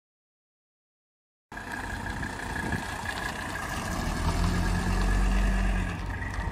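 Car engine running as a Mercedes-Benz W123 diesel sedan drives off. The sound cuts in suddenly about a second and a half in, and a low steady drone swells from about four to six seconds in.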